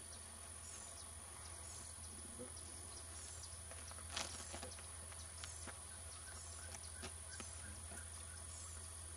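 Birds calling: a short high descending note repeated roughly once a second, with other smaller chirps and one louder call about four seconds in, over a steady high-pitched tone.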